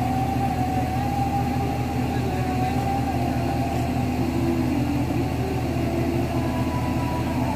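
Diesel engine of a mobile crane running steadily under load, a constant low engine note with a thinner whine above it that wavers slowly in pitch.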